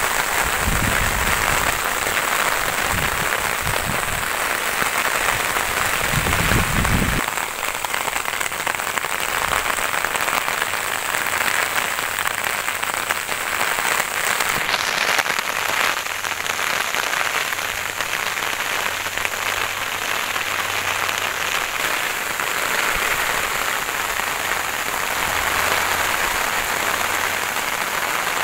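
Steady heavy rain falling on paddy fields and vegetation, an even hiss. For about the first seven seconds there is also an irregular low rumbling from wind buffeting the microphone.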